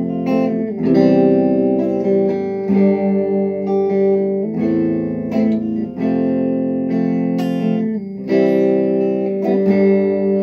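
Tagima electric guitar on its middle pickup, played straight into an amp: a run of strummed chords, each left to ring before the next is struck.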